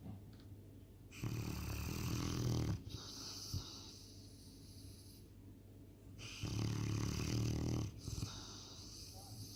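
Presa Canario puppy snoring loudly in its sleep: two long snores about five seconds apart, each lasting about a second and a half, with quieter breathing between them.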